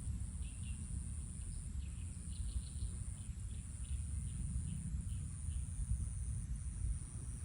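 A small bird chirping, a quick series of short high notes over the first six seconds or so, above a steady low rumble and a thin steady high tone.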